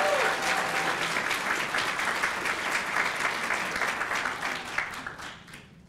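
Audience applauding after a name is called, a dense patter of many hands clapping that dies away near the end.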